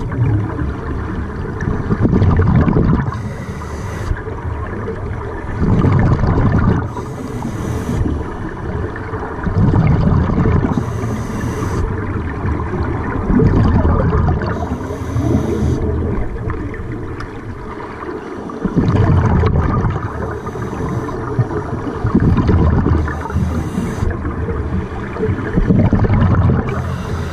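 Scuba diver breathing through a regulator underwater: a hissing inhalation alternating with a rumbling burst of exhaled bubbles, about one breath every three to four seconds.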